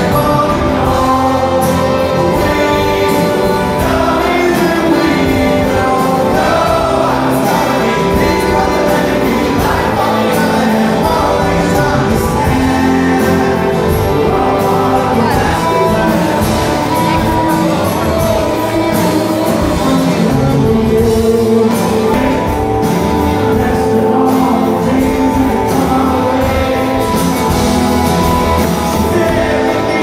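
A man singing a rock ballad live, with strummed acoustic guitar and band accompaniment. It is recorded from the audience in a large hall.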